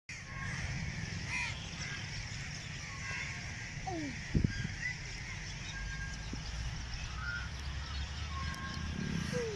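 Birds calling: scattered short chirps and two falling calls, over a low steady rumble.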